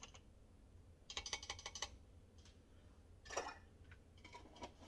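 Soft kitchen handling sounds as minced garlic is spooned from a small glass jar: a quick run of light clicks about a second in, a brief rustle a little past three seconds, and a few scattered small taps near the end.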